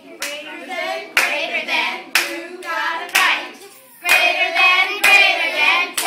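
A group of voices singing a rhythmic chant, with a hand clap on the beat about once a second. The singing grows fuller and louder about four seconds in.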